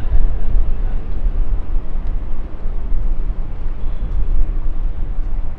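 City-centre street noise outdoors, dominated by a loud, uneven low rumble.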